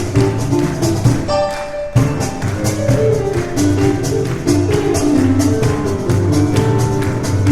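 Piano and cajón duo playing a fast instrumental piece: rapid cajón slaps drive under piano chords and runs. About a second and a half in, the low notes drop out briefly before the full groove comes back.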